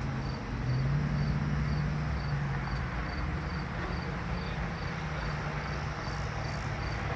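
A cricket chirping steadily, a short high chirp repeating about two and a half times a second, over a low steady hum.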